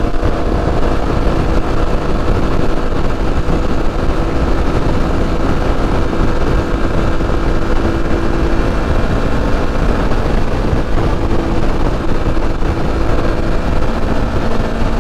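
Aprilia Tuareg 660 parallel-twin engine running under way, its steady note shifting slightly in pitch a couple of times over a dense low rumble.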